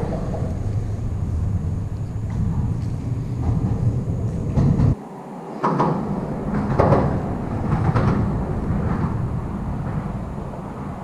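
A low, steady rumble that cuts off abruptly about five seconds in. It is followed by several soft knocks and rustles as hands handle a small caught sunfish close to the camera.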